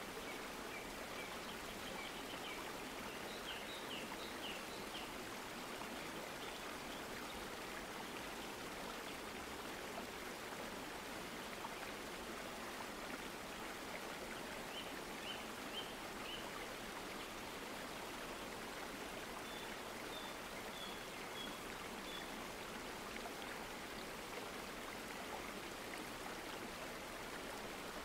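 Steady rushing noise like running water, with faint bird-like chirps in short runs at a few points.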